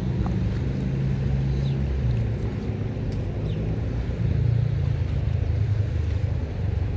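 Wind buffeting the microphone, giving a steady, unevenly swelling low rumble over the sound of the flowing river, with a few faint short high chirps.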